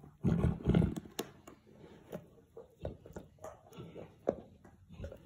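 Boerboel gnawing a bone or horn chew: irregular crunches and clicks of teeth on the chew, heaviest in the first second.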